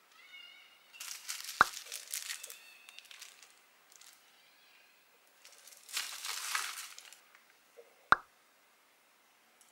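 Plastic packaging and bags crinkling and rustling as they are handled and packed, in two stretches, with two sharp clicks, about one and a half seconds in and near the end.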